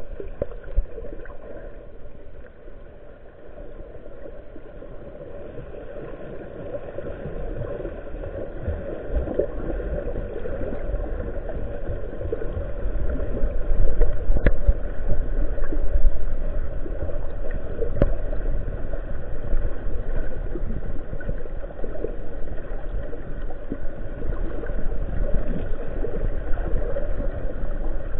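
Muffled underwater noise picked up by a submerged camera: water rushing and gurgling past it as the swimmer moves, growing louder about halfway through, with two faint clicks.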